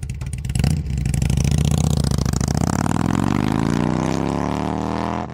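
2012 Harley-Davidson Street Glide's air-cooled 103 cubic inch Twin Cam engine, through chrome slip-on mufflers, running with even firing pulses. It surges about half a second in, then pulls steadily with its pitch slowly rising, as when accelerating away.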